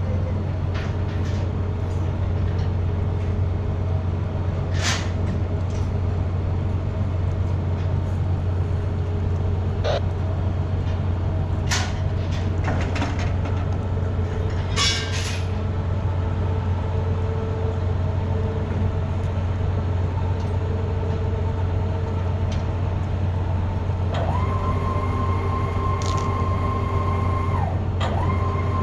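Steady low hum of a cargo ship's machinery, with a few short knocks and clicks. Near the end a steady whine comes in, breaks off briefly and starts again.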